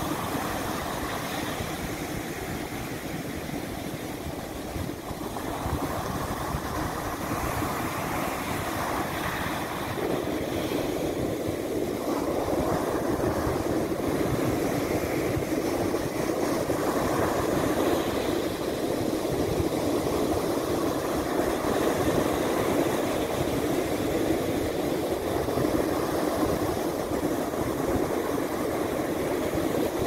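Mediterranean surf breaking on a sandy beach: a continuous wash of waves rising and falling, growing louder from about a third of the way in.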